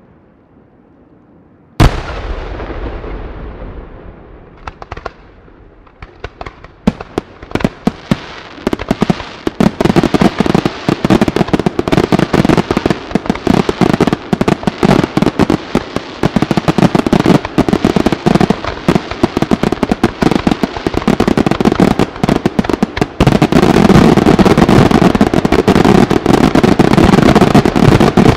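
Aerial fireworks show: a single loud shell burst about two seconds in that trails off, then scattered bangs that build into a dense, continuous barrage of reports and crackling. The barrage grows louder again near the end.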